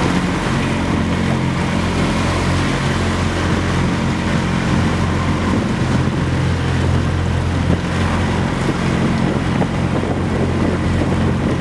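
Motorboat engine running at a steady speed, with wind on the microphone and rushing water.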